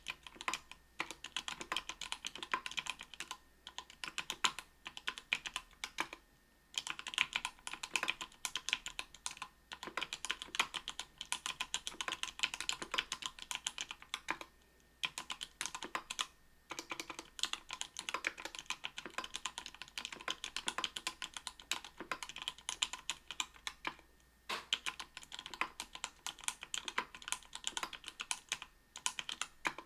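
Typing on a mechanical keyboard with lubed Everglide Sky Blue 55 g linear switches in an aluminium-plated Octagon V3 with GMK keycaps: fast runs of key presses in bursts, broken by several short pauses.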